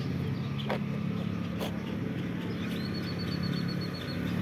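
A vehicle engine runs steadily with a low hum, with a couple of light clicks in the first two seconds. From just before the middle to near the end, a rapid run of high-pitched chirps repeats at one pitch for about a second and a half.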